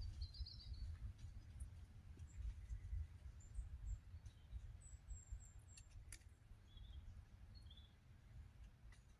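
Faint small-bird chirps at scattered intervals over a low rumble, with one sharp click about six seconds in.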